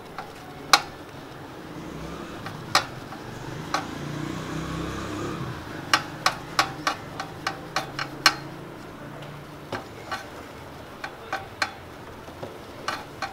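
Royal Enfield Classic 350's roller chain being wiped dry with a rag after a diesel wash, the chain running through the cloth: irregular sharp metallic clicks of the links and sprocket, bunched together about six to eight seconds in, with a faint low rumble near the middle.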